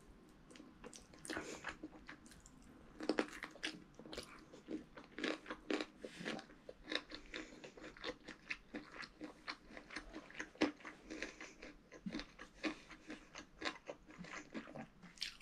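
Close-up chewing and mouth sounds of a person eating rice and chicken curry by hand: a steady run of short smacks and clicks, several a second.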